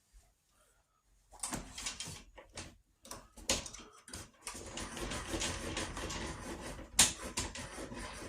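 Handling noises from a Craftsman 8-1/4-inch benchtop table saw as its blade is wound down and the saw is turned around: irregular clicks, rattles and scraping, starting about a second in and growing busier, with a sharp knock about seven seconds in.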